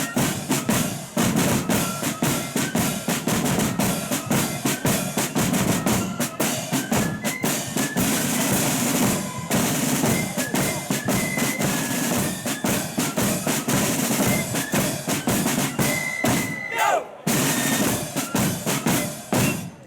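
Loyalist marching flute band playing: high flute melody over rapid snare drum rolls and bass drum beats, with brief breaks in the drumming twice.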